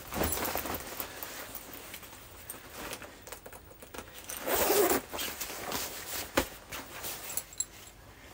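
Metal zip on a heavy waxed-canvas parka being started at the hem and pulled up, the longest and loudest zip run about halfway through, with the stiff canvas rustling throughout. A couple of sharp clicks follow near the end as the press studs are snapped shut.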